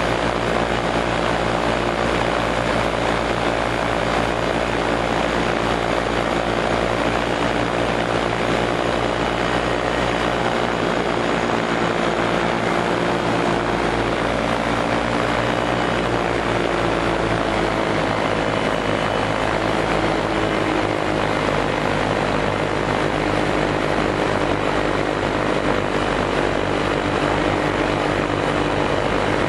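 Light aircraft's piston engine and propeller running steadily, heard from on board, its pitch shifting slightly about halfway through.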